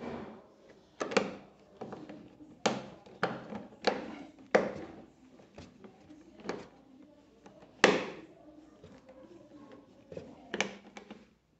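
Irregular sharp clicks and knocks of a screwdriver working screws into the Voltz EV1 electric motorcycle's plastic front fairing, about a dozen taps with pauses between, the loudest about eight seconds in.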